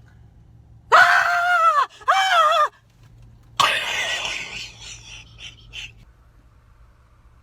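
A person screams twice at a high pitch, the second scream shorter, then lets out a long, noisy, breathy cry that fades off in a few short bursts.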